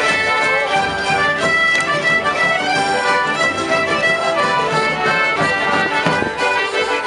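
Traditional Cornish street band playing a dance tune live. Fiddles, accordions, whistles, a mandolin and a brass horn play together over a steady drum beat from bass and snare drums.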